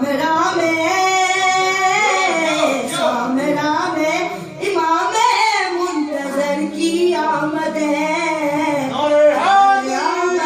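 A boy's voice singing a devotional recitation through a microphone, unaccompanied, with long held notes that glide up and down in pitch.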